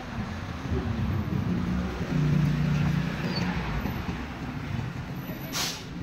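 Road traffic passing close by: vehicle engines running in a steady low rumble, one engine hum growing louder for about a second a couple of seconds in, and a short sharp hiss near the end.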